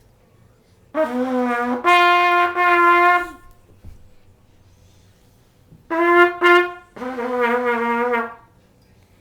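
A brass horn played in long held notes. A low note steps up to a higher note about a second in, two short higher notes come near six seconds, and the phrase drops back to a held low note.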